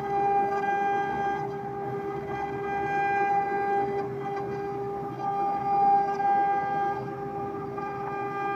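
AccTek CNC6090 small CNC router's spindle whining steadily as its bit carves a relief into wood, with a cutting noise that swells and eases and is loudest about six seconds in.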